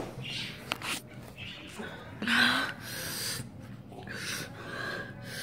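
Breathy exhales and sniffs from a boy, with a short voiced sound about two seconds in. A sharp knock a little under a second in comes from the phone being picked up and handled.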